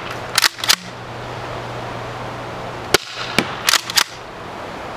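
Umarex T4E HDX CO2-powered less-lethal launcher firing in quick strings of sharp pops: about three in rapid succession near the start, then about four more from about three seconds in.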